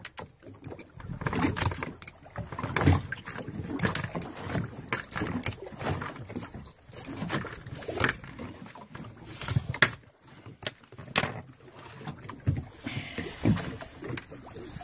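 A hand tool scraping and prying barnacles off a small sea turtle's shell: irregular rasping scrapes and sharp clicks as the crust cracks away.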